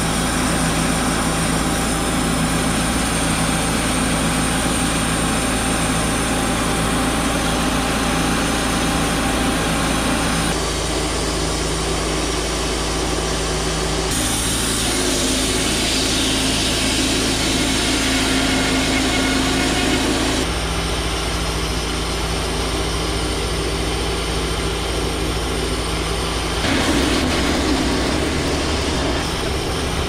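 Wood-Mizer LT28 portable bandsaw mill running, its engine under steady load as the band blade cuts through a wide white pine log. The engine note shifts in steps about 10, 14, 20 and 27 seconds in.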